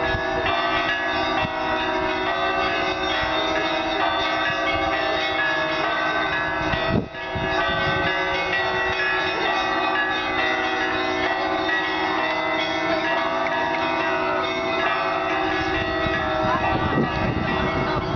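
Russian Orthodox church bells ringing a continuous peal, many bells of different pitches sounding together and overlapping. The sound dips briefly about seven seconds in.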